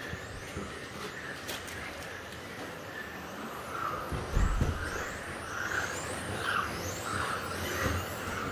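Electric 1:10 RC touring cars with 17.5-turn brushless motors lapping a carpet track, their high motor whine rising and falling in pitch as cars come and go. A low thump about four and a half seconds in.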